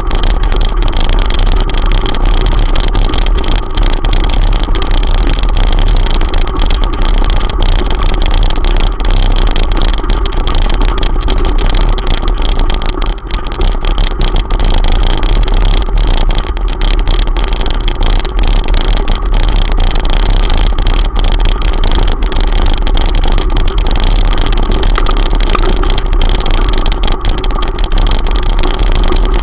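Loud, steady rumble of a ride up a gravel track as picked up by a handlebar-mounted camera: vibration and wind noise with a constant low hum and a couple of steady tones, unchanging throughout.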